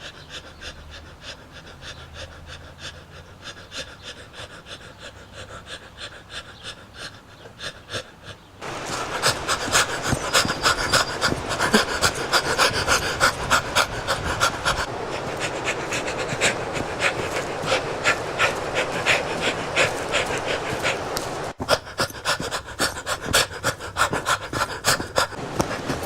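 A man panting heavily as he runs, in a fast, steady rhythm of breaths. The breathing becomes suddenly louder and closer about nine seconds in.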